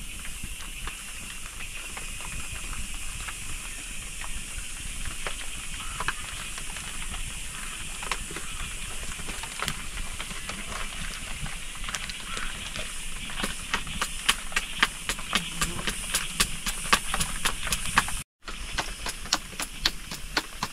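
A log fire under an iron griddle, hissing steadily with scattered crackles. From about two-thirds in come quick, sharp slaps, several a second, as flatbread dough is patted out between the palms.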